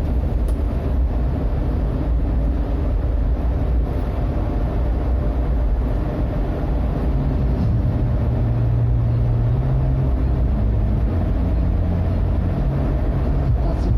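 Toyota Kijang Kapsul's 7K four-cylinder petrol engine and road noise while driving: a steady low drone whose engine note shifts a little a few times.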